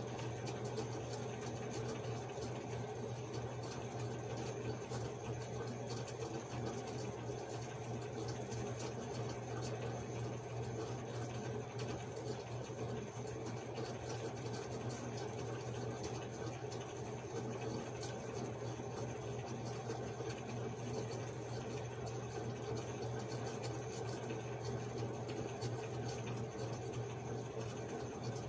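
Steady low hum with an even hiss: constant room background noise, with no distinct events standing out.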